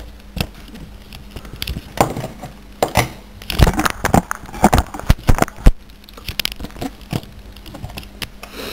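Irregular handling clicks, knocks and rattles as a multimeter and its thermocouple probe are picked up and moved about, the busiest and loudest clatter in the middle, over a faint steady hum.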